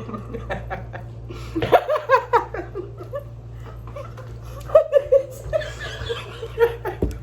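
People laughing in short bursts, with a steady low hum underneath.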